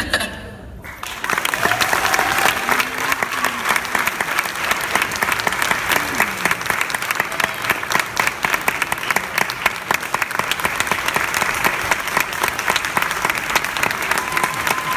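Theatre audience applauding, starting about a second in once the music has stopped and continuing steadily, with a few faint voices over the clapping.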